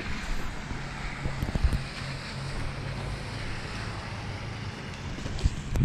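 Boat engine running steadily at low speed with a low hum, with wind noise on the microphone.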